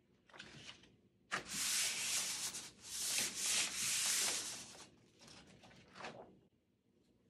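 Hands rubbing and working the paper backing against a sheet of Jessup grip tape, making a gritty rubbing sound. It comes in two long strokes starting about a second in, then a few shorter rustles.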